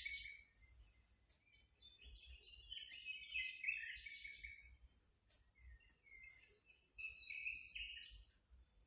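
Faint bird song: two runs of quick, high chirping notes, one starting about two seconds in and another from about six seconds.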